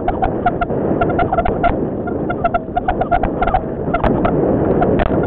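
Mountain bike ridden fast over a rough forest dirt trail, heard from a camera on the bike or rider: a steady rumble of tyres, wind and the mount shaking, with rapid rattling clicks and short squeaks.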